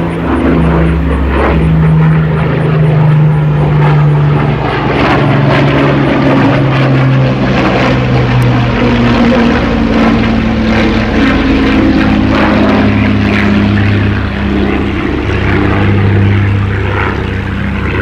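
Rolls-Royce Merlin V12 piston engines of WWII British warbirds flying past, a loud continuous propeller drone whose pitch slides down and back up as the aircraft pass.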